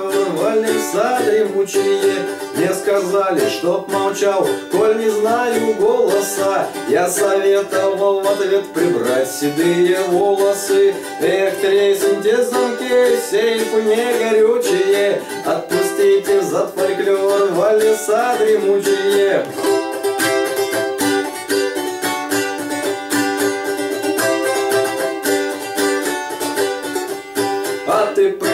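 Balalaika in folk tuning strummed rapidly and continuously, with a man's voice singing along over it.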